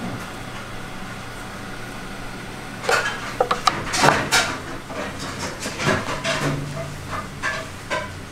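Kitchen clatter: a run of sharp knocks and clicks, like utensils and dishes being handled, beginning about three seconds in over a steady equipment hum.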